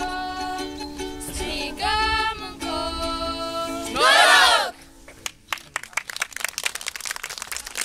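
A song sung live with instrumental accompaniment, ending about four seconds in on a loud, wavering held note. Then the audience applauds.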